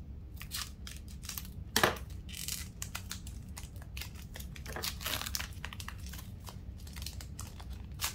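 Foil booster-pack wrapper being cut with scissors and crinkling as the trading cards are pulled out: scattered short crackles and rustles, the sharpest about two seconds in.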